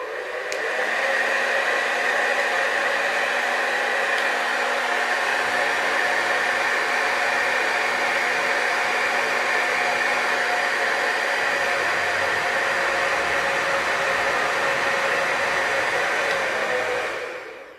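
Babyliss 1400 W hair dryer running after being reassembled: a steady rush of blown air with a hum from the fan. It builds up over the first second and dies away near the end.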